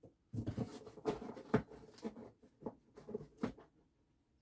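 Someone rummaging through items off-camera: irregular rustling and light knocks of things being picked up and moved, with a sharper knock about one and a half seconds in and another at about three and a half seconds.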